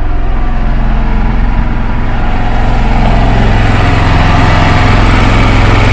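An engine running steadily aboard a motor fishing boat, a loud, even drone.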